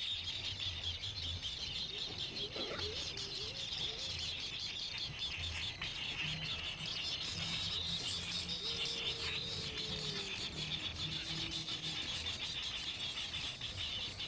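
Baby birds chirping in a dense, unbroken high twitter: the begging calls of nestlings waiting to be fed.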